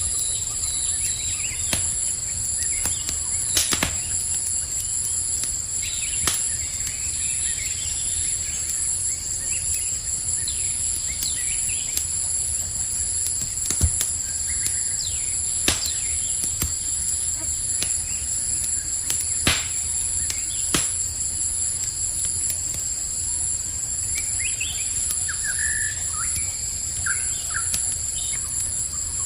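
Campfire crackling, with a sharp pop every few seconds, over a steady high chorus of crickets. A few short bird chirps come in near the end.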